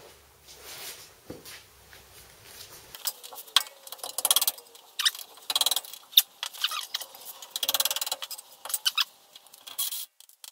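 A spanner working the bolts loose on a VW T3's front radius rod mounting. Faint handling at first, then from about three seconds in, short runs of rapid metallic clicking and sharp clinks of the tool on the nuts.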